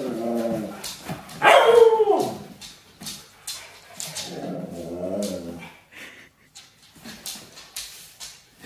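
Siberian husky vocalizing in drawn-out, wavering howl-like cries. A loud one falls in pitch about a second and a half in, and a longer warbling one comes around four to six seconds. Softer clicks follow near the end.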